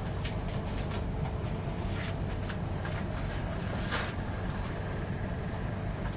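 A steady low hum runs throughout, with a few brief rustles and clicks of handling, the sharpest about four seconds in.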